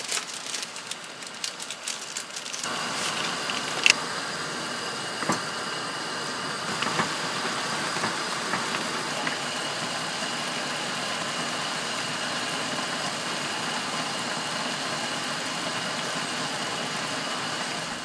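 Water at a rolling boil in a pan, crackling and bubbling, then about three seconds in a pot of instant ramen broth with a whole lobster bubbling steadily at the boil, with a few small pops.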